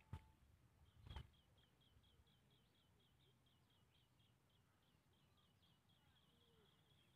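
A faint bird call: short high chirps repeated about four times a second, running together into a trill near the end. Two soft knocks come in the first second or so.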